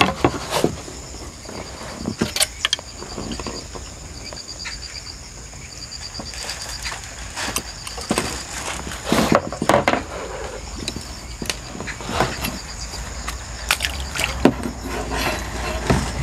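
A hooked fish splashing at the water's surface as it is landed with a landing net, with scattered knocks and clicks from the net and tackle; the loudest splashing comes a little past the middle. A faint high insect trill comes and goes in the background.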